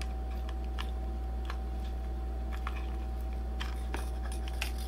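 Scattered small clicks and taps of the action camera's small plastic parts being handled and fitted together, over a steady low electrical hum.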